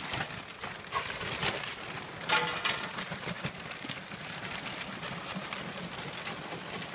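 Footsteps on wet, muddy ground: an irregular patter of clicks and crackles, with a brief louder burst about two and a half seconds in.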